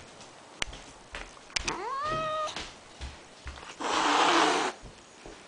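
House cat meowing once, a long cry that rises and then holds, about two seconds in, then hissing for about a second near four seconds in: an angry, resisting cat.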